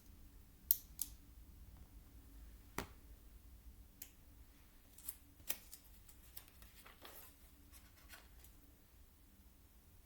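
Plastic Lego pieces being handled and pressed together: scattered light clicks and taps, a pair in the first second, a sharper one about three seconds in, then a run of lighter clicks.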